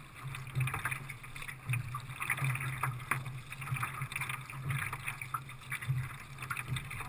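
Water splashing and lapping against the hull of a Zegul Baidarka sea kayak under way through choppy water, with a low knock that swells about once a second.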